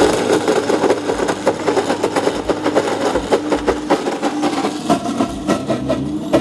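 Etzel Max I high-power countertop blender running at full speed, crushing frozen strawberries and ice cubes, with chunks clicking against the jar. The sound enclosure is open at first and is closed about five seconds in, which takes some edge off the sound.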